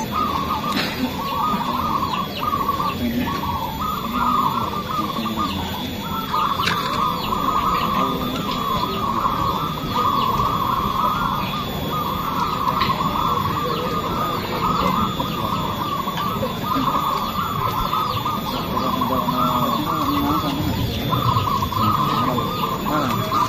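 Many caged zebra doves (perkutut) cooing at once in a dense, overlapping chorus, with brief lulls about six seconds in and shortly before the end.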